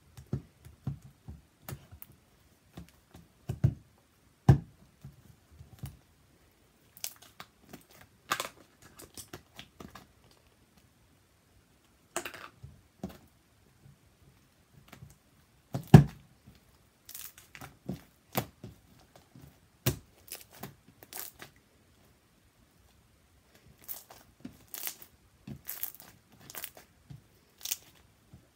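Sticky slime, made sticky with added body wash soap, being stretched, pulled apart and pressed by hand on a tabletop: irregular crackles, pops and clicks as it sticks and tears, with one louder slap about halfway through.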